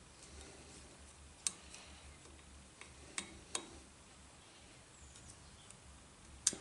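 A handful of sharp, separate metallic clicks as a small screwdriver taps and picks at a rusty cast flywheel held in a stopped lathe chuck.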